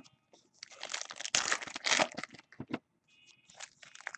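Baseball cards and their plastic sleeves being handled and shuffled on a table: an irregular run of crinkling, rustling noises.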